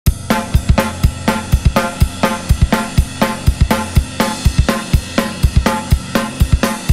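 Background music: a steady, fast drum-kit beat with kick drum, snare, hi-hat and cymbals, about four strokes a second.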